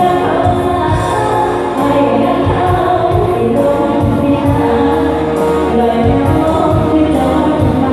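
Live band music with singing over a steady drum beat.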